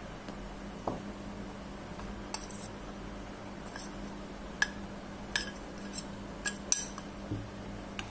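A stainless steel spoon clinks and scrapes against a steel bowl and plate as powder is scooped from one onto the other. The clinks come as a scattered series of short, sharp ticks, the loudest about four and a half seconds in and again shortly before the end, over a faint steady hum.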